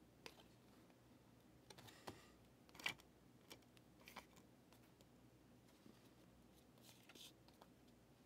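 Faint rustling and light clicks of trading cards being handled and set down on stacks, a handful of soft strokes, the clearest about three seconds in.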